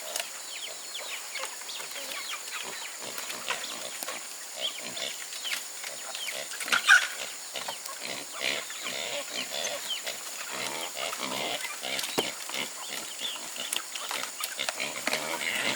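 Chickens clucking among other farm animals, many short irregular calls with one louder call about seven seconds in, over a steady high-pitched drone.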